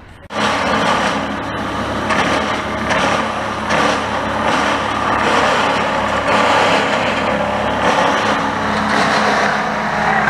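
Trailer-mounted brush chipper running hard, a steady engine hum under the harsh noise of branches being chewed up. It starts suddenly and swells and eases every second or so as limbs feed through.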